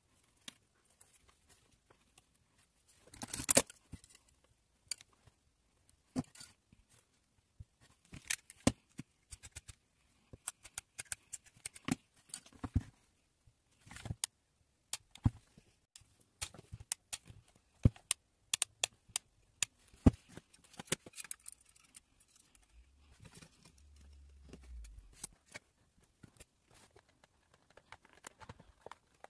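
Small tabletop handling noises from working with thin wire and hand tools, sped up: irregular clicks, taps and rustles, with one louder clatter about three and a half seconds in.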